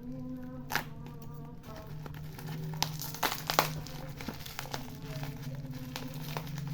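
Plastic parcel packaging crinkling and crackling as it is handled and opened, with sharp crackles from about two seconds in, over background music.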